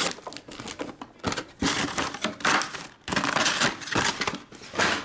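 Foil-wrapped trading card packs from a 2020 Panini Certified box crinkling and rustling as they are handled and stacked, in irregular bursts.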